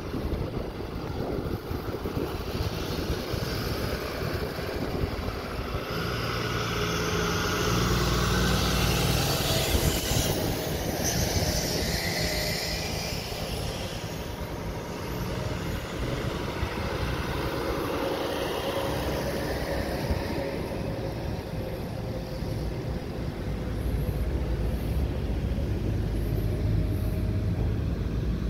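Ambulance, fire engine and pickup truck driving slowly past one after another: engine rumble and tyre noise that swell as each heavy truck goes by, loudest about a third of the way in.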